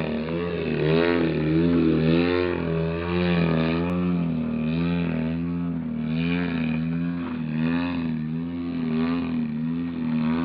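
100cc two-stroke gasoline engine of a giant-scale radio-controlled Extra 300 aerobatic plane running in flight, its note rising and falling every second or so with the throttle through 3D manoeuvres.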